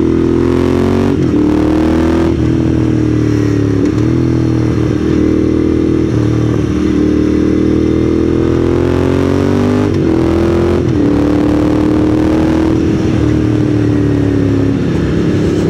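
Moto Guzzi Griso 8V SE's 1151cc transverse V-twin engine running under way. Its pitch climbs slowly, then dips briefly and picks up again several times.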